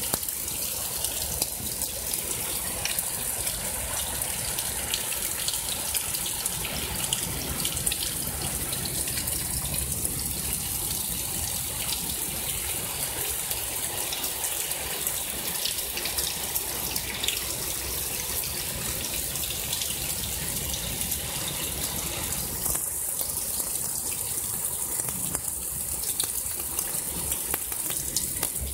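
Heavy rain pouring down steadily during a storm: a dense, even hiss of falling water with many small splashes of drops landing.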